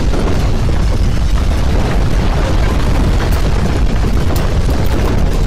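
Loud, steady rumble of a landslide, heaviest in the low end.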